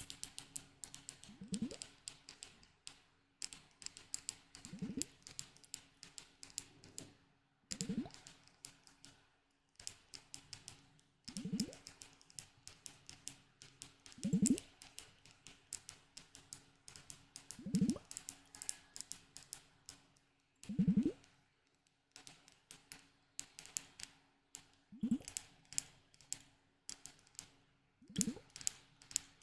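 Rapid tapping and clicking on a hard object, in quick clusters, with a short low rising tone every three seconds or so.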